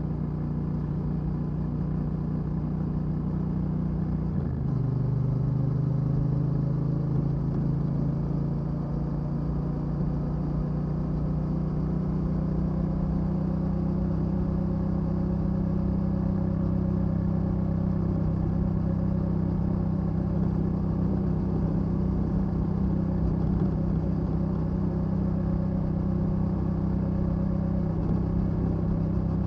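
Yamaha Ténéré 700's 689 cc parallel-twin engine pulling the bike along at road speed on its stock exhaust. About four and a half seconds in there is a gear change, and then the engine note climbs slowly as the bike gains speed.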